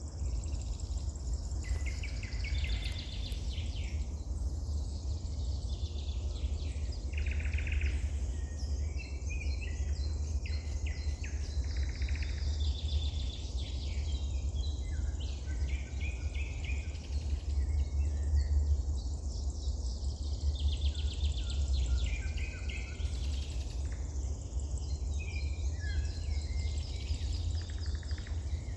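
Several songbirds singing and calling at once, with quick trills and chirps overlapping throughout, over a steady low rumble.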